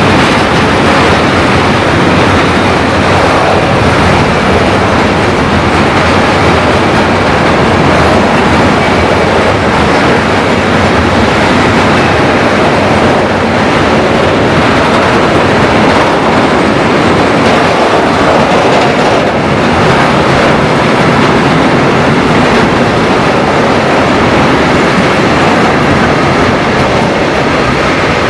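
Freight train of gas tank wagons rolling past at a steady pace, its wheels running on the rails, loud and even throughout.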